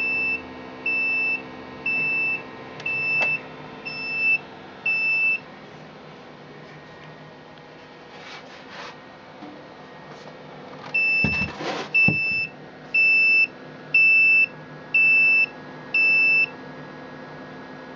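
An Arduino-controlled incubator's electronic alarm beeping six times, about one beep a second, then after a pause of several seconds another six; six beeps signal that the set temperature and humidity have not yet been reached. A steady electrical hum runs underneath, with a brief rustle between the two runs.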